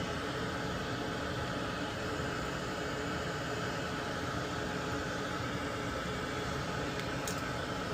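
A small fan running with a steady whir, from a bench tool in use for desoldering parts off a circuit board. Two faint light ticks come near the end.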